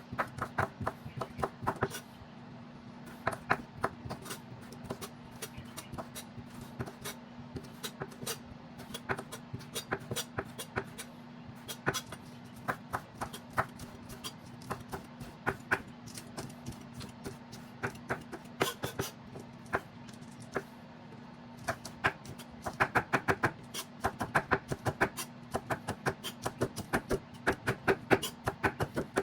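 Knife chopping on a cutting board: quick runs of sharp taps, busiest near the start and in the last several seconds, over a steady low hum.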